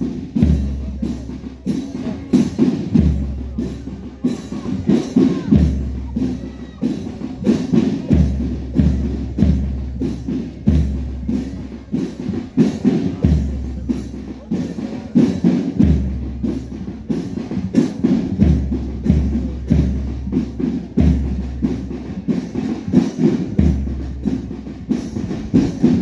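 Marching music driven by drums: a bass drum and percussion keep a steady march beat of about two strikes a second.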